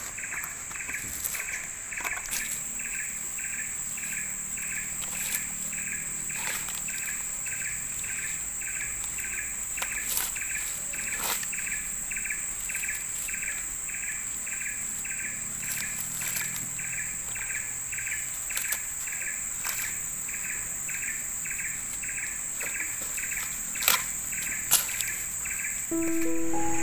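Tropical forest ambience: a steady high-pitched insect drone with a short chirp repeating about twice a second, and a few sharp clicks. Music comes in near the end.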